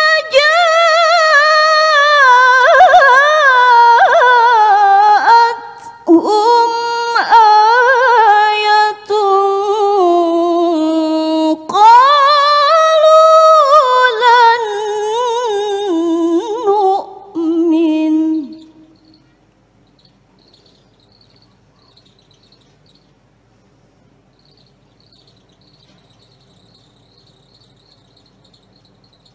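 A woman reciting the Quran in melodic tilawah style: long held notes with vibrato and ornamented runs, in several phrases separated by short breaths, ending about 18 seconds in. After that, a pause between verses with only faint, intermittent cricket chirping.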